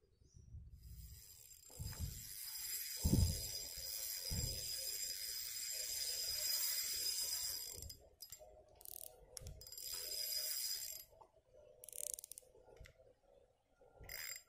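Fishing reel's drag buzzing as a hooked fish pulls line off against a drag set too loose: one long run of about seven seconds, then shorter runs in the second half. A few low knocks from handling the rod come about two to four seconds in.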